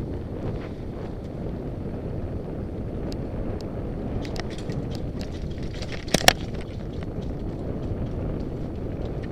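Mountain bike rolling down dirt singletrack, heard from a helmet-mounted camera: a steady low rumble of the tyres on the trail, with scattered sharp clicks and rattles from the bike over bumps and two louder knocks close together about six seconds in.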